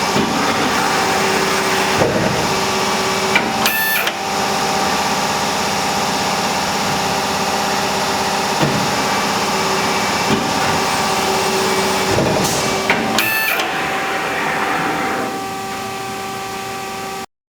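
RAS 74.30 CNC sheet-metal folding machine running with a steady mechanical hum and whine, with short clanks twice, a few seconds in and again about two-thirds through. The sound drops a little near the end and then cuts off suddenly.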